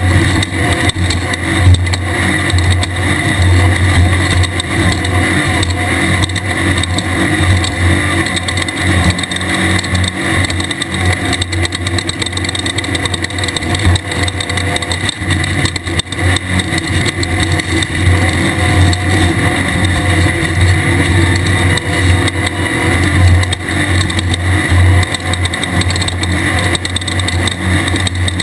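Engine of a 1600-class off-road desert race buggy, an air-cooled VW flat-four, running hard at fairly steady high revs with brief dips, mixed with driving noise.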